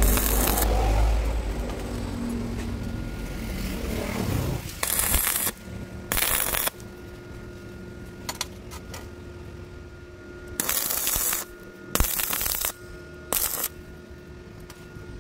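Metal being worked by hand: scraping and clinking in five short bursts of about half a second each. A faint steady hum runs under them.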